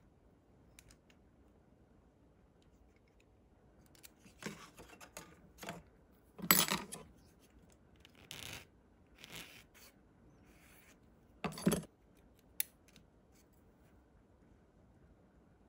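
Small plastic model parts and hobby tools (tweezers, file) being handled: a scattered run of short scrapes and rubs, loudest about six and a half seconds in, with a single sharp click near the end.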